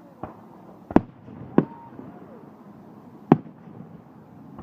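Fireworks going off: a faint pop near the start, then three loud sharp bangs, two close together about a second in and another near the end.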